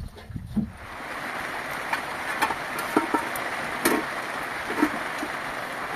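Steady rush of water that starts suddenly about a second in, with a few light knocks over it.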